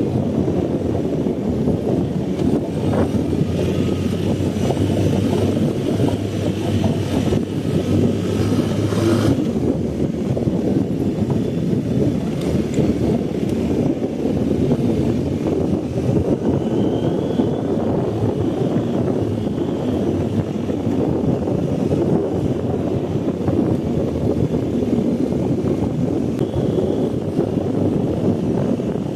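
BMW R 1250 GS boxer-twin engine running steadily as the motorcycle rides along, heavy with rumbling noise.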